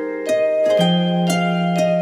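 Background music: gentle plucked notes, a new one about every half second, each ringing on under the next.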